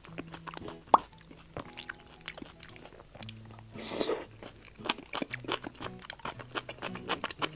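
Close-miked eating sounds: chewing with many small crunches and crackles, a sharp click about a second in, and a louder wet bite about four seconds in into a sauce-coated fried skewer of tofu skin rolled around chives.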